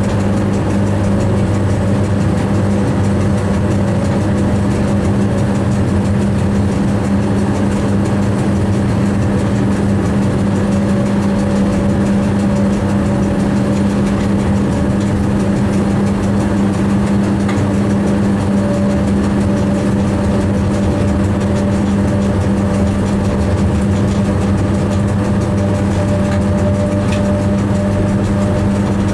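A moving train heard from inside the driver's cab: a steady, unchanging low hum and running drone.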